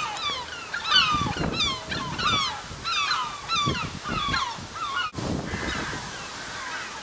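Birds calling: many short, falling calls in quick succession, overlapping. They cut off suddenly about five seconds in.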